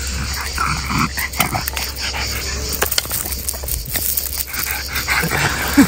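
Small dog growling in short bursts while tugging on a stick, with scattered sharp clicks.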